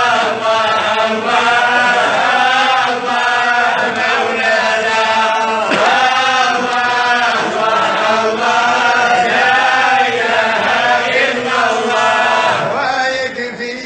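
Chanted vocal music: a voice drawing out long, wavering held notes, with no beat.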